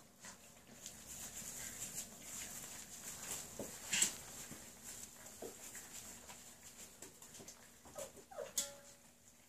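Whippet puppies eating kibble from a metal bowl: many small clicks and clinks of mouths and food on the bowl, with a few brief puppy whimpers, the clearest a short falling one near the end.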